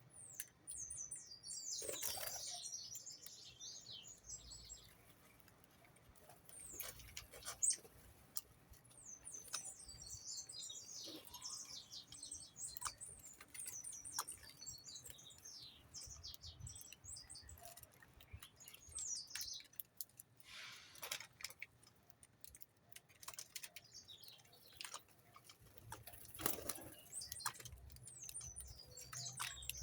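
Small birds chirping and twittering in quick runs of high, falling notes, with scattered sharp clicks between them.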